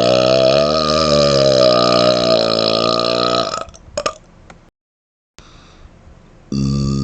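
A long, drawn-out burp with a wavering pitch, ending about three and a half seconds in. After a short pause with a couple of small clicks and a moment of dead silence, another loud burp begins near the end.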